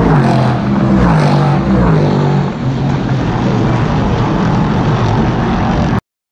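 LMP3 prototype race car's V8 engine running hard as the car passes on the straight, its pitch dropping as it goes by and pulls away, then a steady engine drone. The sound cuts off suddenly about six seconds in.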